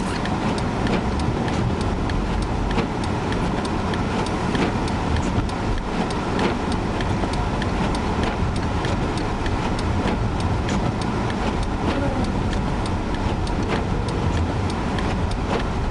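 Steady road and engine noise of a car being driven, heard from inside, with frequent small ticks scattered throughout.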